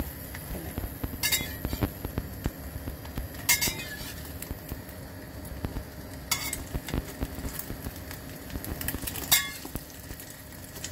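Metal spatula scraping and clinking against a stainless steel frying pan as an egg-wrapped slice of bread is turned over, with four sharp ringing clinks spread through it. Egg and bread sizzle in the oil underneath.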